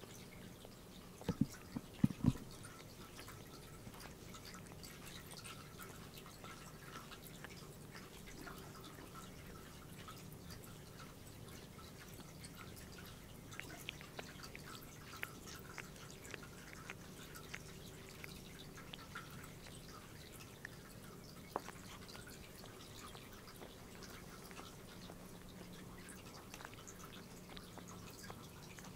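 A domestic cat grooming itself, its tongue making soft, wet licking clicks against its fur, over a steady low hum. A few louder low thumps come about a second and two seconds in.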